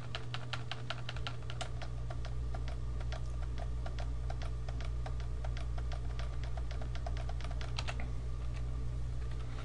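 Computer keyboard keys clicking in a fast, steady rhythm, several presses a second, stopping about two seconds before the end, over a low steady hum.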